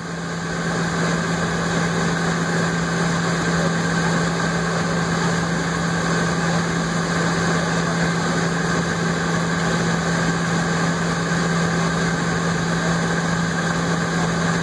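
Jet airliner's engines idling while it taxis, heard inside the cabin as a steady hum with a strong low tone.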